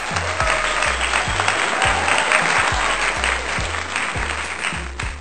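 Applause over background music with a steady bass beat.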